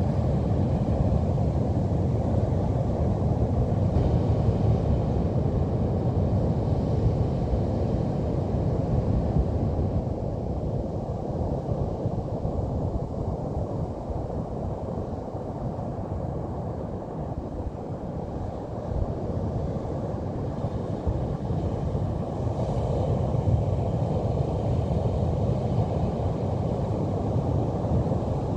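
Pacific Ocean surf breaking on the beach: a steady low rumble of waves that eases a little midway and builds again toward the end.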